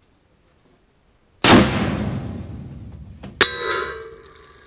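A 300 Remington Ultra Mag rifle with a muzzle brake fires once about a second and a half in, a loud blast with a long echoing decay. About two seconds later, as the bullet reaches the target, a sharp crack with a metallic ring sounds from the hit.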